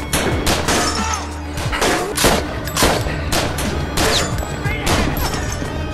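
Action-film soundtrack: a run of sharp gunshots, roughly one or two a second at uneven spacing, over a steady low music drone.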